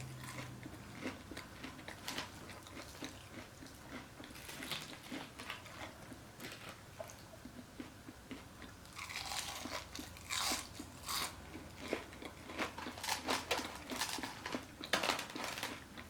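Close-miked biting and chewing of crunchy fried onion rings: steady crunching, with louder bursts of crunches about nine seconds in and again near the end.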